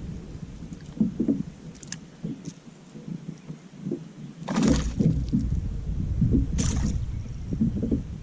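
Low knocks and rumble from handling gear in a fishing kayak, with two short noisy bursts about four and a half and six and a half seconds in.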